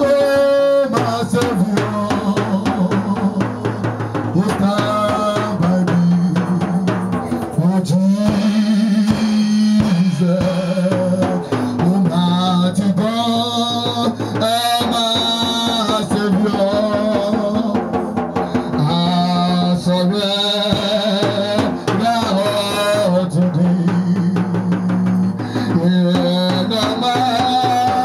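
Live gospel worship music: a band with a drum kit keeping a steady beat under a bass line, with a man singing into a microphone at times.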